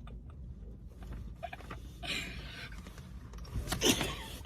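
Low steady rumble inside a car cabin, with a short hiss about two seconds in and a brief louder noise near the end.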